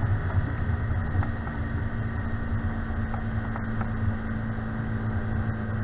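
Bass boat's outboard motor running steadily with a low drone while the boat cruises, mixed with the rush of wind and water.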